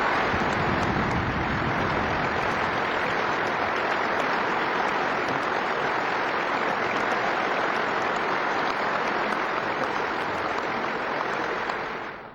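A large hall audience applauding steadily, dying away near the end. The recording plays at double speed.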